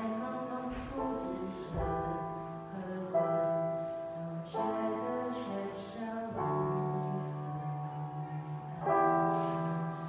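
Yamaha digital keyboard playing a slow song, sustained chords over a held bass line that change every second or two.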